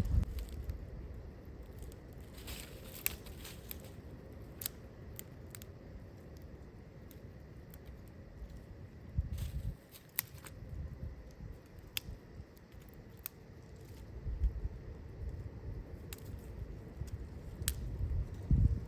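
Wind gusting against the microphone in low rumbling surges, four or so through the stretch, with scattered sharp clicks and crackles between them.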